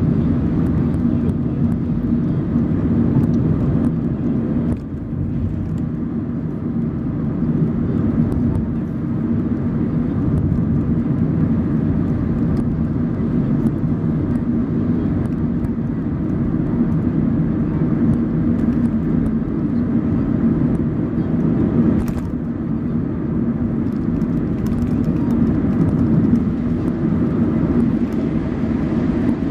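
Car driving at steady speed, its engine and road noise heard as an even low hum from inside the cabin.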